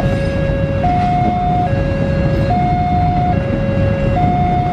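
Railway level-crossing warning alarm sounding two alternating electronic tones, low then high, switching about every 0.8 seconds. Underneath runs the low rumble of a passenger train's coaches rolling over the crossing.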